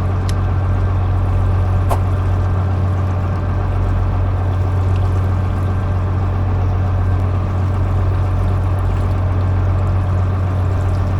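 Fishing boat's machinery running with a steady low drone, with a wash of water and hiss over it. Two brief clicks come within the first two seconds.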